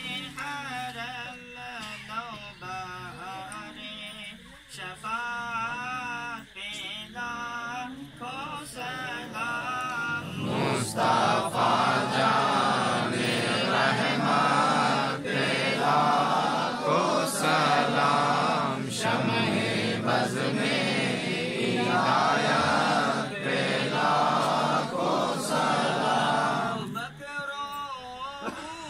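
Devotional chanting without instruments. A lone male voice sings an ornamented, wavering line, and about ten seconds in a group of voices joins in together, louder. The group carries on until near the end, when the single voice returns.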